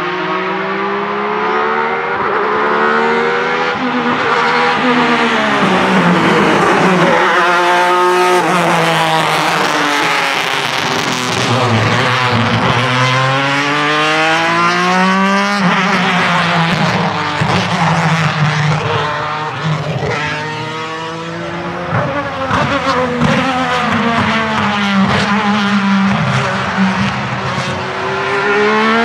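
1996 Alfa Romeo 155 V6 TI DTM race car's V6 engine at high revs, climbing through its gears in quick stepped upshifts of the sequential gearbox and falling back on lift-off and downshifts as the car laps past. In the second half there is a scatter of sharp pops.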